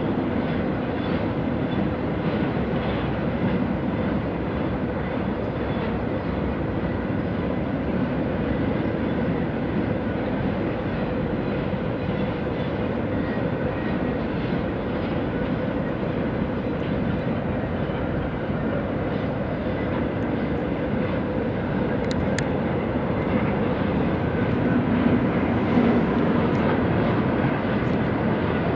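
Double-stack intermodal freight train rolling past, with a steady rumble of wheels on rail that swells slightly near the end.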